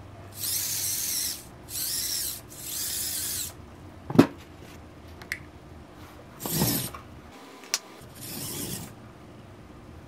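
Small electric motors of a 3D-printed 1/24-scale RC crawler chassis running in five short bursts of about a second each. A sharp knock about four seconds in is the loudest sound, with a lighter click a little before eight seconds.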